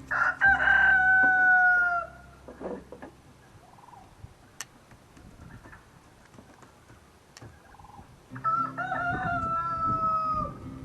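A rooster crowing twice: one long crow at the start and another near the end, each ending on a slightly falling pitch.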